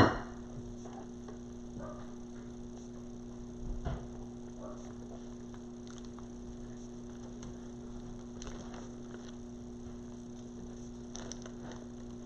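Low steady electrical hum, with faint rustles and light taps of hands handling craft materials and a soft bump about four seconds in.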